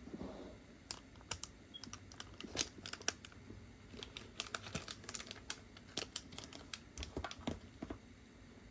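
Typing on a computer keyboard: a run of irregular key clicks, several a second, after a soft rustle at the start.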